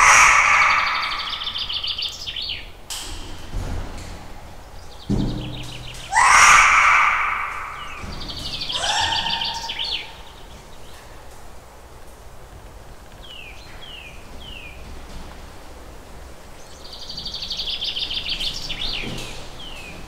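Forest birds calling: loud harsh calls at the start, about six seconds in and about nine seconds in, rapid high trills several times, and a few short falling chirps midway. A low thump about five seconds in.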